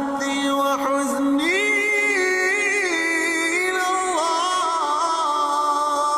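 A single voice reciting in a slow, melodic chant, holding long notes with ornamented turns, in the style of Quran recitation; it climbs to a higher note about a second and a half in and eases back down a little past the middle.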